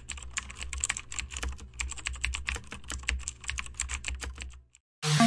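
Computer-keyboard typing sound effect: rapid, irregular key clicks that stop just before the end. Electronic music starts right after.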